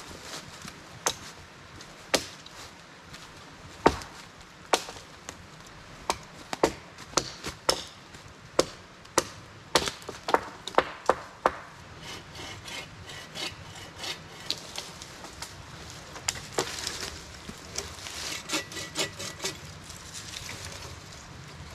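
Hand tool cutting branches off a freshly felled small tree. Sharp woody knocks come about once a second, and about halfway through they give way to a faster, denser run of rasping cutting strokes.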